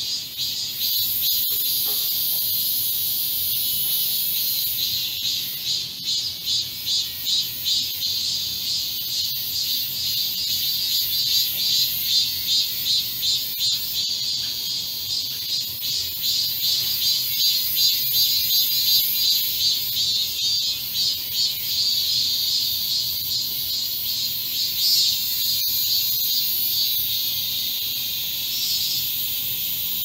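Cicadas singing in chorus: a steady shrill buzz, overlaid through most of it by a pulsing call that throbs about two to three times a second.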